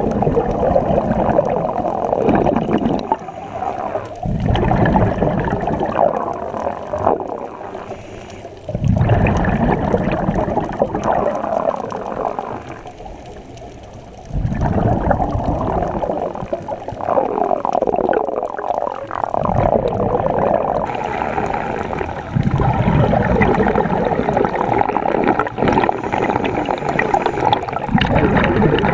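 Scuba diver breathing through a regulator underwater: stretches of gurgling exhaled bubbles lasting several seconds, broken by short quieter pauses for the inhale.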